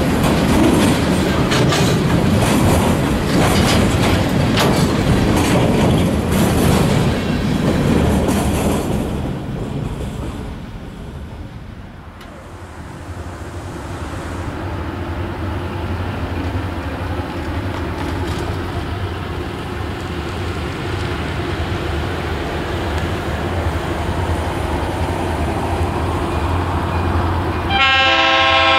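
Freight cars rolling past close by, with a steady run of wheel clicks and rattles over the rail joints for about the first nine seconds. After a lull, a diesel locomotive's engine hums steadily as it draws nearer, and near the end its horn sounds.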